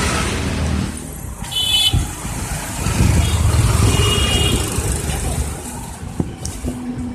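City road traffic, with car and auto-rickshaw engines running close by and a low rumble throughout. Two short, high-pitched horn beeps sound, about a second and a half in and again around four seconds.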